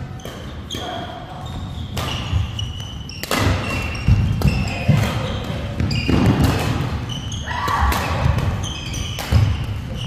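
Badminton doubles rally in a gym: rackets smacking the shuttlecock again and again, with sports shoes squeaking and thudding on the court floor as the players move.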